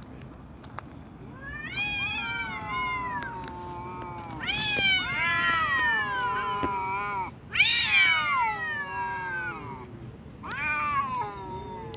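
Cats yowling at each other in a fight standoff: four long, wavering yowls, each bending up and then falling away, the loudest about eight seconds in.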